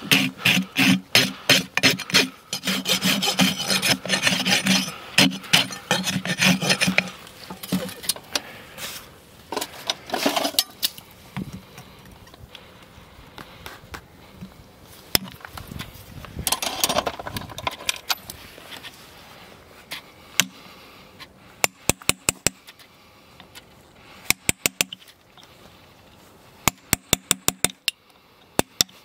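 A farrier's rasp filing a horse's hoof wall in fast, regular strokes, which stop after about seven seconds. Quieter scraping follows, then from about 22 s a hammer taps a steel tool against the shoe nails in quick groups of sharp clicks.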